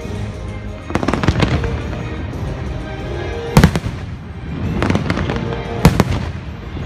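Fireworks going off in sharp bangs: a cluster about a second in, a loud single bang midway, and two more close together near the end, over the fireworks show's music.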